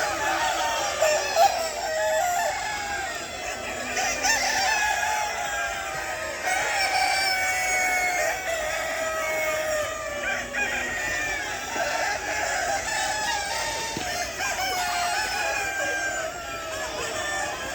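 A large flock of chickens calling over one another: several roosters crowing, their long calls overlapping, with hens clucking underneath.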